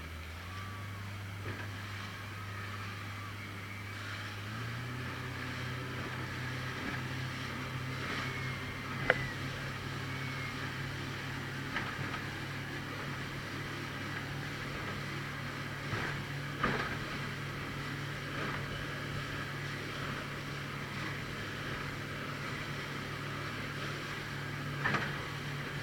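Speedboat engine running steadily, its pitch stepping up twice in the first five seconds as it picks up speed, then holding. A few sharp knocks sound over it, the loudest about nine seconds in.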